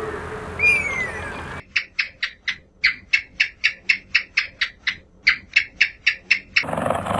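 An animal's call: a brief falling whistle, then a rapid series of about twenty short, sharp chirps at roughly four a second. It cuts off abruptly near the end, where a louder, lower sound takes over.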